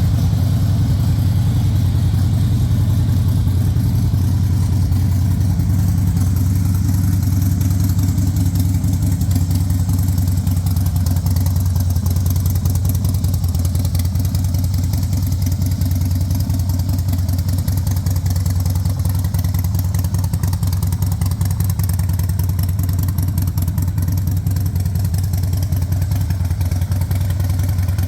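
Motorcycle engine idling steadily and loud, with a constant low drone and no revving.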